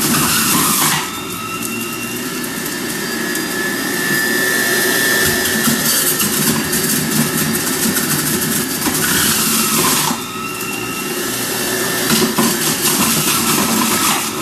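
Uber Appliance UB-CJE 800-watt centrifugal juicer running steadily at a low speed setting, with a motor whine as it shreds apple and strawberry pieces pushed down the feed chute. The sound turns louder and hissier right at the start and again around nine seconds in.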